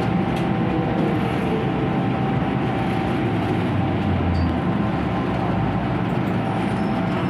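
An MTR Kwun Tong line M-Train electric multiple unit running at steady speed: a continuous rumble of wheels on rail with a steady tone held over it.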